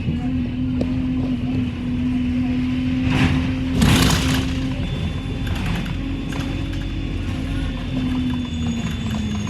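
Bus engine running steadily, heard from inside the passenger saloon while the bus is on the move, with a short loud burst of hissing noise about three and a half seconds in.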